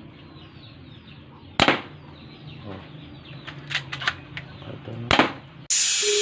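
Spring-type airsoft pistol firing two sharp shots about three and a half seconds apart, with lighter clicks between them.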